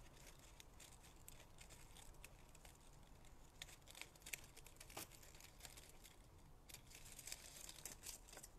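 Faint crinkling and rustling of thin vellum paper with small scattered clicks, as delicate die-cut pieces are eased out of a metal cutting die.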